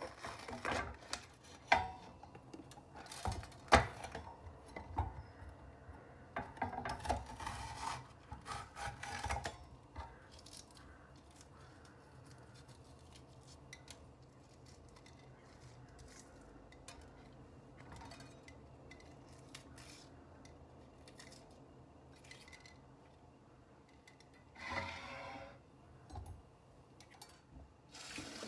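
A knife cuts through crisp pointed peppers on a wooden cutting board, with crunching, squeaky cuts and clicks of the blade on the board. After about ten seconds it gives way to quieter rustling and snapping as the pepper flesh is pulled apart by hand and the seeds removed.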